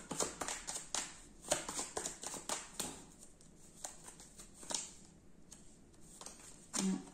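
Oracle cards being handled and laid on a table: a string of irregular quick flicks, snaps and taps of card stock, some with a short sliding rustle.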